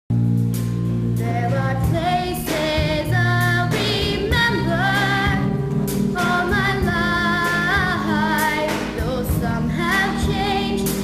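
A girl singing a solo, holding notes with vibrato, over instrumental accompaniment.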